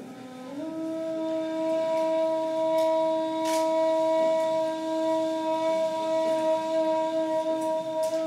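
A ney, the end-blown reed flute, sounding one long steady low note that enters with a short upward slide in pitch.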